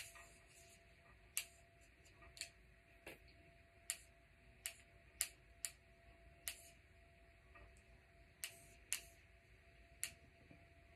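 Computer mouse clicking: about a dozen single sharp clicks at uneven intervals over a faint steady hum.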